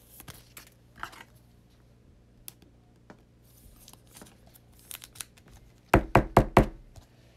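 Faint rustling and light clicks of trading cards being handled, then a quick run of about five sharp knocks about six seconds in.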